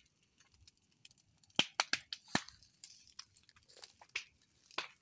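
Irregular sharp crackles and snaps from dry bamboo and leaf litter, several close together a little after one and a half seconds in, and a couple more near the end.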